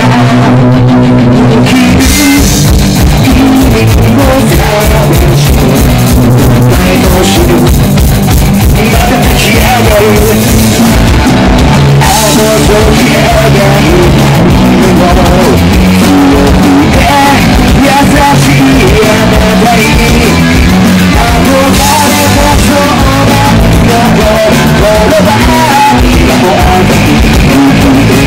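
Live rock band playing loud: electric guitar, bass and drum kit with a singer on vocals. Held chords open, then the drums come in with a fast steady beat about two seconds in.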